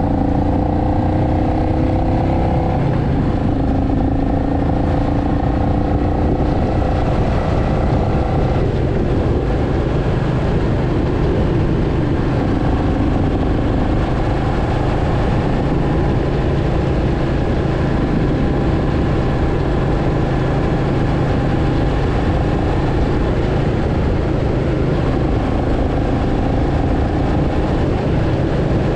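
Royal Enfield Meteor 350's single-cylinder engine and exhaust running under way at cruising speed, heard from the saddle with a steady rush of wind and road noise. The engine note shifts in pitch twice in the first several seconds, then holds steady.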